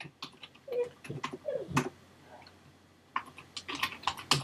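Computer keyboard keys clicking in an irregular run of keystrokes as text is typed, with the loudest clicks nearly two seconds in and just before the end.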